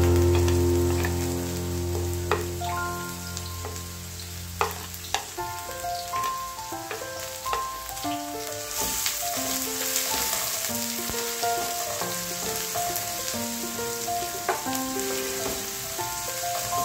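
Chopped red onions sizzling as they fry in a pan, with a wooden spoon clicking and scraping against the plate and pan; the sizzling grows louder about halfway through. A soft melody of background music plays underneath.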